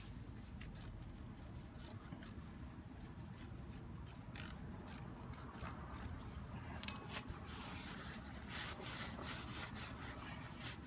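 Motorcycle drive chain being scrubbed in quick, irregular strokes to work off old, hardened grease.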